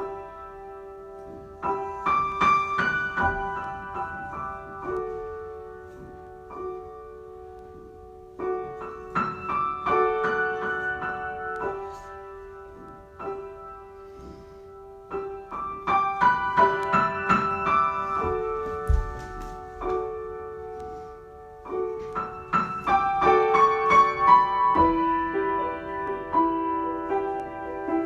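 Solo piano improvisation: slow phrases of chords and notes that swell about every seven seconds and ring on, over a middle note held throughout.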